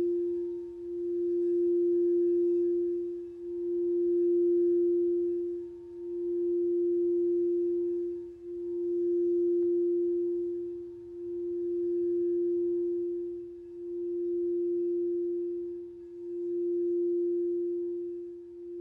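Singing bowl sounding one steady, pure held tone that swells and dips in loudness about every two and a half seconds.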